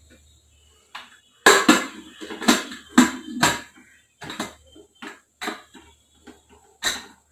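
Metal clattering and knocking as a pressure cooker's lid is fitted and locked shut, a quick cluster of clanks followed by sparser knocks. A last sharp clink near the end as the whistle weight is set on the vent.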